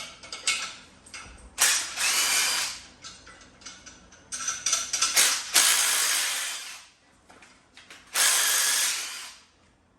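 Small cordless ratchet running in three bursts, with clicks between them, as bolts on the front of the engine are spun out during water pump removal.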